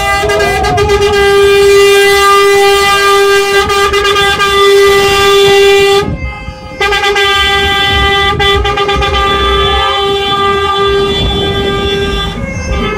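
Vehicle horn held down in one long steady blast, stopping for under a second about six seconds in and then sounding again, over the low rumble of traffic in a slow-moving convoy.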